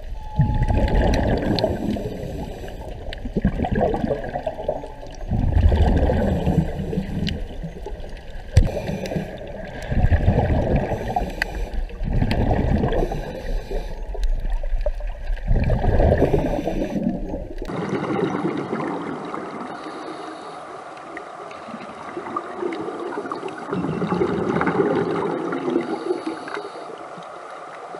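Scuba regulator exhaust bubbles heard underwater: surges of bubbling every few seconds as the diver breathes out. About two-thirds of the way through, the sound changes abruptly to a quieter, steadier water noise with one more surge of bubbling near the end.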